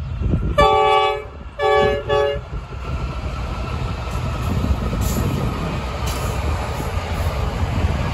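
Diesel freight locomotive's multi-tone air horn sounding three blasts, a longer one then two short ones close together, from the lead Pacific National NR-class locomotive. Then comes the steady rumble of the locomotives and container wagons rolling past.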